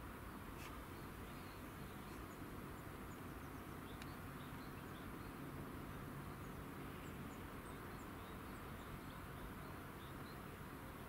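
Faint outdoor ambience: scattered short bird chirps over a steady low hum and hiss, with two faint clicks, the first early on and the second about four seconds in.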